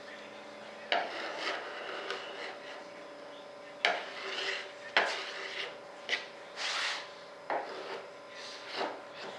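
Hand work scraping and rubbing on a part, broken by several sharp knocks, over a faint steady hum.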